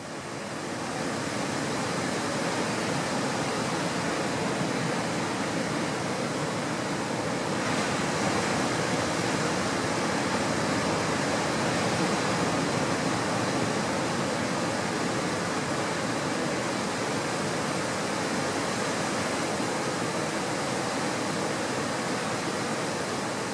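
Steady rush of sea surf washing on a shore, swelling up in the first second and then holding even.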